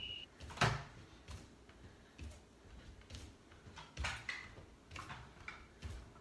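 Faint, irregular light taps and thuds of bare feet tapping the cushioned seat of a wooden chair and landing on an exercise mat during alternating toe taps, about one to two a second.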